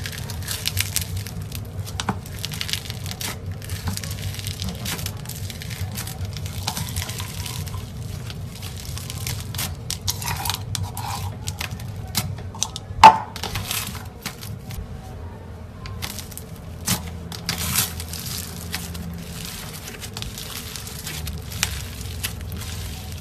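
Foam-bead slime (floam) being squeezed and kneaded by hand, giving dense crunchy crackling and popping as the beads squish, with one sharper, louder click about halfway through.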